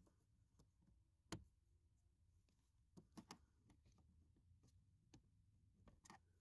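Near silence broken by a few faint plastic clicks as a flat-blade screwdriver pries at a push-pin clip on a plastic under-dash panel: one click about a second in, a quick run of three around three seconds, and a few fainter ones near the end.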